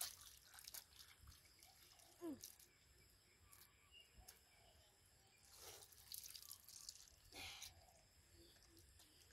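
Faint drips and small splashes of muddy water as hands and a plastic basket work in a shallow puddle, with two slightly louder splashes in the second half.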